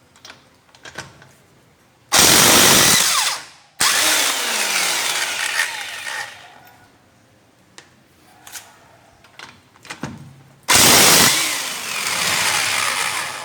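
Impact wrench with a 19 mm socket, run in reverse to loosen wheel bolts: three loud bursts of hammering, about two seconds in, just after, and near the end, each fading as the motor winds down.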